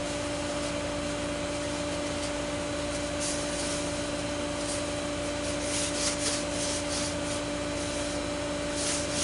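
Paper towel rubbing and wiping spilled wood glue off the workbench and workpiece, in strokes that become a quick run of about three a second in the second half. A steady hum runs underneath.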